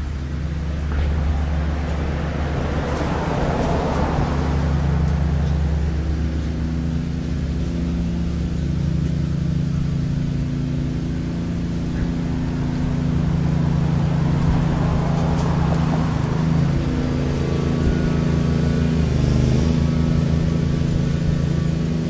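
Road traffic: cars passing on the street, two swelling by about three and fifteen seconds in, over a steady low hum.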